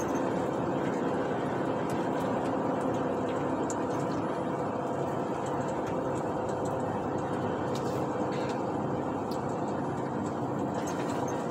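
Steady engine and road noise from a truck driving at an even pace, with no change in speed or load.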